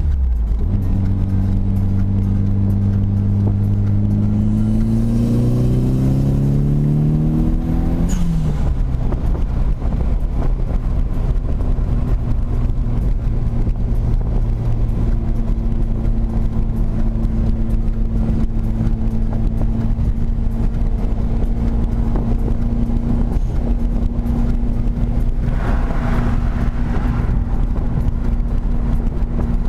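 Turbocharged Nissan SR20DET engine with a T28 turbo pulling under boost, rising steadily in pitch for about seven seconds, then dropping sharply with a brief rush of noise as the revs fall, and running at a steady speed after that. The owner suspects the noise under boost means the turbo may be going out.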